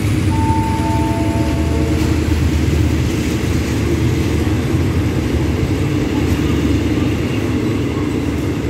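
Passenger coaches of a commuter train rolling past the platform as the train pulls out: a steady, loud rumble of wheels on the rails. A brief high tone sounds for about a second and a half near the start.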